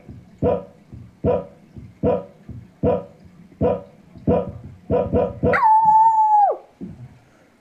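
Electronic keyboard's sampled dog-bark sound effect played key by key: a string of identical barks about one a second, closer together near the end. It is followed by a held, howl-like tone about a second long that bends down as it stops.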